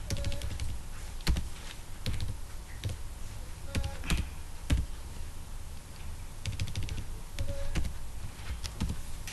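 Computer keyboard being typed on: irregular keystrokes, some in quick runs and others single, with short pauses between.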